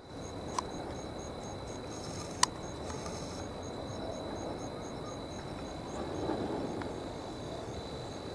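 Night insects in forest undergrowth: a steady high trill and a faint high chirp repeating about four times a second. Low rustling runs underneath, with two sharp clicks, the second louder, about half a second and two and a half seconds in.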